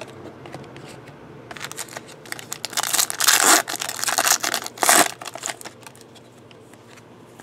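Foil Panini trading-card pack torn open by hand: a few seconds of crinkling and tearing foil, loudest in the middle, with a couple of sharper rips about three and five seconds in.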